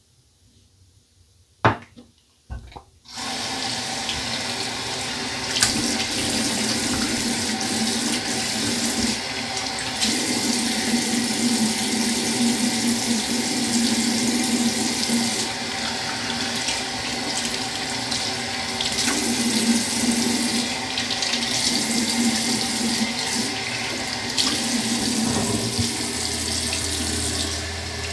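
Two sharp clicks about two seconds in, then a bathroom sink tap running steadily into the basin.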